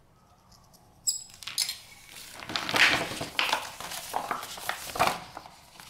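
A protective plastic sheet and a book's dust jacket rustling and crinkling as they are handled and folded, in irregular bursts starting about a second in, loudest near the middle and again near the end.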